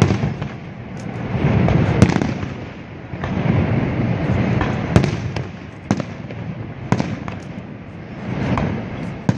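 Aerial fireworks shells bursting: several sharp bangs, spaced about a second or more apart, between longer swells of rumbling noise.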